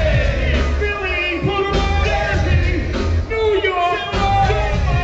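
Live hip hop music played loud through a PA: a heavy bass beat with a voice rapping or singing over it.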